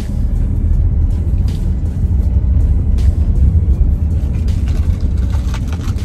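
Low, steady rumble of a car's engine and road noise heard from inside the cabin while driving, with music playing along.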